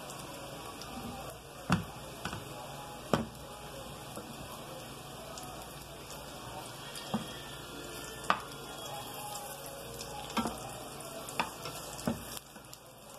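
Plantain slices sizzling in hot oil in a frying pan while a spatula turns them, with a sharp click or tap every second or two.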